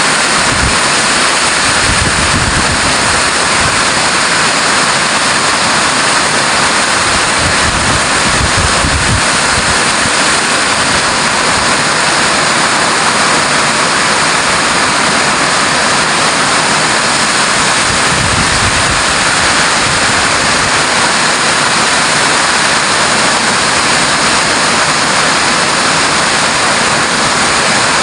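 Heavy rain pouring steadily in a dense, unbroken hiss, with strong wind gusting and buffeting the microphone in a few low rumbles.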